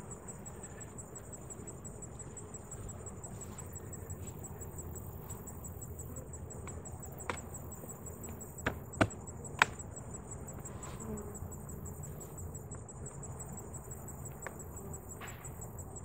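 Steady high chirring of insects in the grass, a fast even pulse. Midway through come a few sharp knocks as the wooden hive boxes are handled, three close together.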